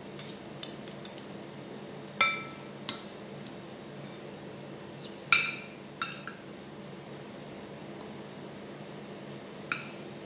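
Metal spoon and fork clinking and scraping against a plate while eating: scattered sharp clinks that ring briefly, several quick ones in the first second, then single ones every second or few, the loudest about five seconds in.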